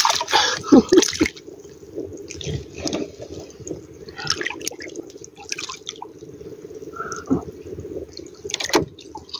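Shallow seawater splashing and dripping around a person diving in beside a bamboo outrigger, in a string of small irregular splashes.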